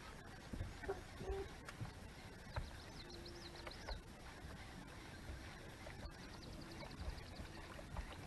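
Quiet outdoor ambience with small bird calls: a rapid, high, wavering twitter heard twice, and a few soft low thumps.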